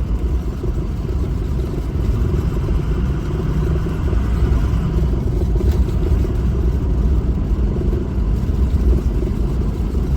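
Steady low rumble of a vehicle's engine and tyres while driving.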